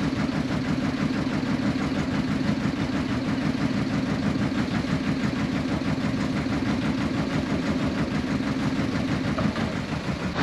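Small fishing boat's engine idling steadily, a low, even running sound with a fast, regular pulse.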